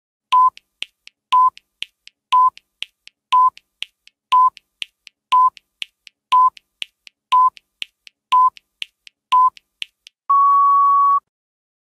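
Quiz countdown-timer sound effect: a short electronic beep once a second, ten in all, with fainter ticks between them. About ten seconds in, a longer, slightly higher beep lasting about a second marks the end of the countdown.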